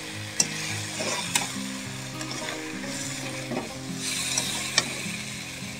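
Crab curry masala sizzling in a pan as it is stirred, with a few sharp knocks of the stirring spoon against the pan.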